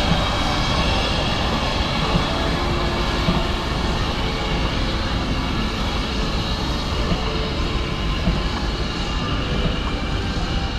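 Steam locomotive and train at the platform: a steady rumble and hiss with no beat of exhaust beats.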